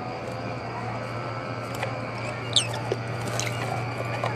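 Rosy-faced lovebird bathing in a water cup, splashing water with its body and wings. One short, high chirp about two and a half seconds in, over a steady low hum.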